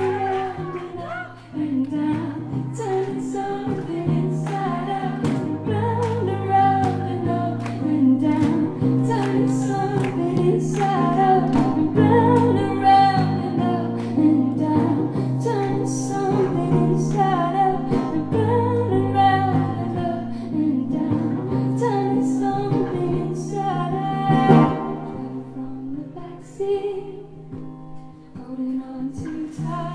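Woman singing solo to a strummed steel-string acoustic guitar in a stripped-down song, with steady regular strums, going quieter for the last few seconds.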